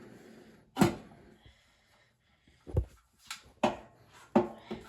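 Several short knocks and clinks, irregularly spaced: tools and parts being handled while a motorcycle's fuel tank is worked loose.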